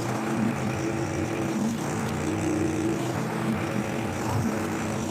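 Petrol lawnmower engine running steadily while the mower picks up leaves, its pitch wavering slightly.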